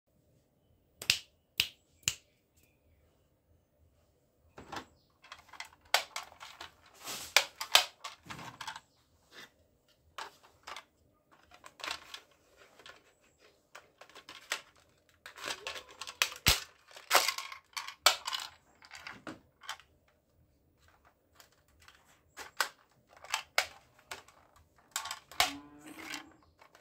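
Hard plastic toy guns being handled: irregular sharp clicks, knocks and rattles as they are picked up off a table and turned over in the hands.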